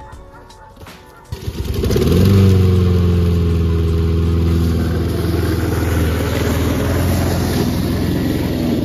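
Honda HRN push mower's small single-cylinder engine starting about a second in, quickly rising to speed, then running steadily at full throttle.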